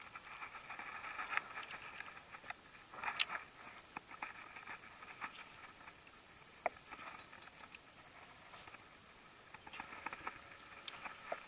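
Quiet lakeside ambience: a steady high-pitched insect chorus, with scattered small clicks and knocks and one sharper click about three seconds in.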